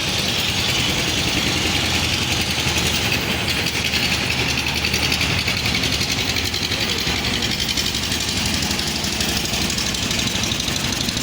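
An engine running steadily at an even speed, with a fast, regular knocking beat.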